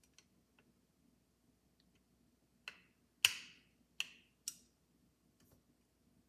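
Four sharp clicks with a short ring, a little over a second in total, from the metal parts of an Orthophonic tone arm knocking together as it is worked by hand; the second click is the loudest.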